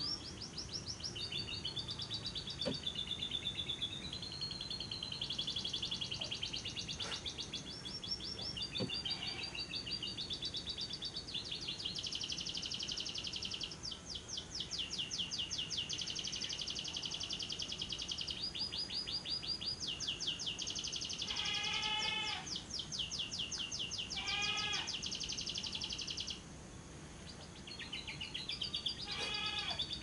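Lovebird singing its long 'ngekek' song: a fast, unbroken chattering trill held for several seconds at a time. In the second half it is broken by a few short runs of quick falling chirps.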